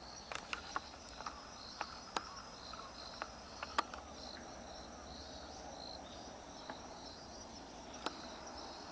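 Insects chirring steadily in a high, slightly pulsing band, with a scattering of short sharp clicks and crunches over it.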